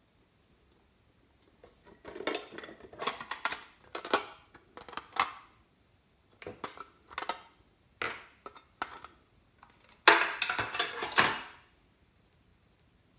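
A printed metal tin box being opened and handled: the metal clatters and small tubes rattle inside it in several irregular bursts, the loudest near the end.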